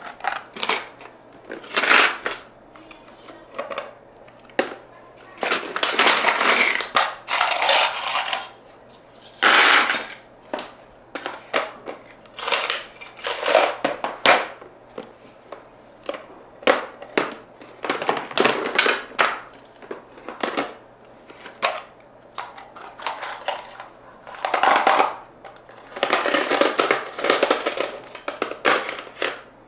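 Household items being handled during cleaning: irregular clatter and knocks of hard objects picked up and set down, with several longer rustling or scraping bursts, over a faint steady hum.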